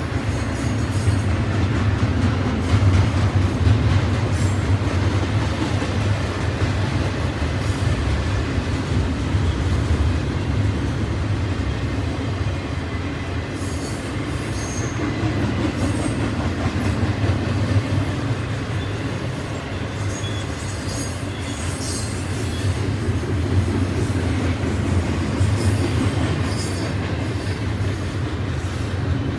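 Double-stack container cars of a freight train rolling past: a steady rumble of steel wheels on rail, with short high wheel squeals now and then.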